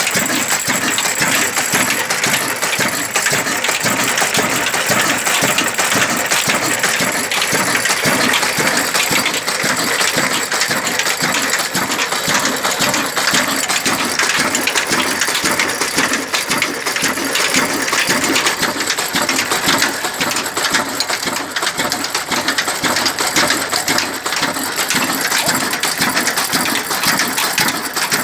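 1968 16 hp stationary 'black engine' with twin spoked flywheels running steadily, with a dense, rapid metallic clatter from its moving parts.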